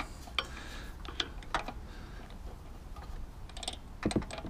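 A few scattered light metallic clicks and taps of a socket on a long extension bar being fitted to and worked on a bolt of a lawnmower engine.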